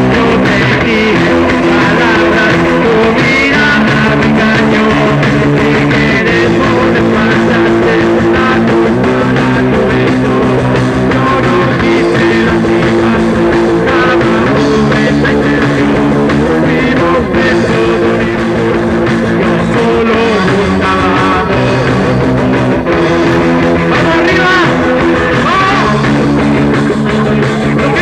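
Live rock band playing a punk rock song, with electric guitar chords held and changing every second or two.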